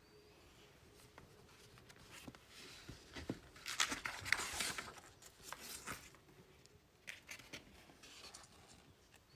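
Scratchy rustling and a few light clicks of small objects being handled, loudest in a stretch from about two and a half to six seconds in.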